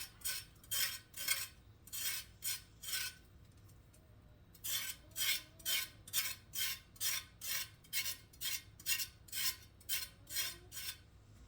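Knife blade scraping the skin off a raw carrot in quick, even strokes, about two a second, with a short pause a little over three seconds in before the scraping resumes.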